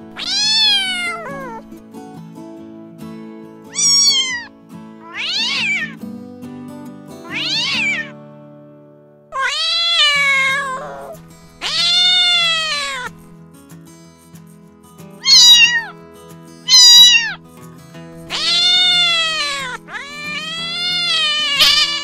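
Domestic cats meowing: about ten separate meows, some short and some long and drawn out, over soft background music.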